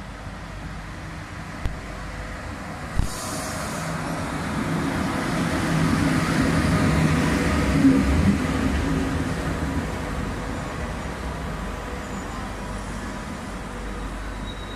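Locomotive-hauled passenger train pulling into the station alongside the platform, its rumble building to a peak about eight seconds in, with wheel knocks over rail joints, then easing as the coaches roll slowly by and slow down. Two sharp knocks come in the first three seconds.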